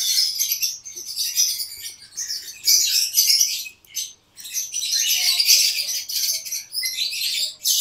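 Many caged lovebirds chirping together in a dense, continuous high-pitched chatter, with a brief lull about four seconds in.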